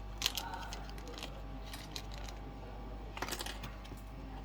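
Light, scattered clicks and taps of small tools and phone parts being handled during a smartphone charge-port board swap, with small clusters of clicks near the start and about three seconds in, over a steady low hum.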